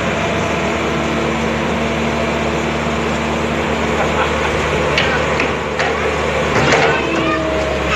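Diesel engine of a Caterpillar E120B excavator running steadily, with a couple of short knocks about five and seven seconds in.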